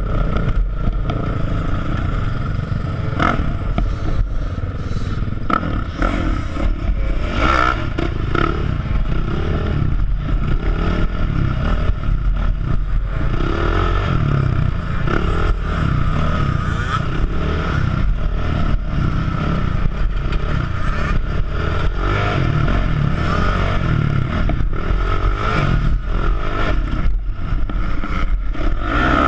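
Kawasaki sport quad's engine running continuously under throttle as it is ridden, heard from a helmet-mounted camera with a heavy low rumble. Scattered short knocks and clatter from the machine over the ground.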